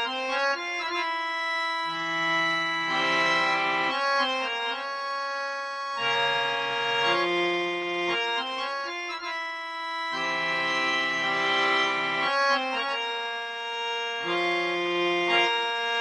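Instrumental music: held chords on an organ-like keyboard instrument, changing about every two seconds.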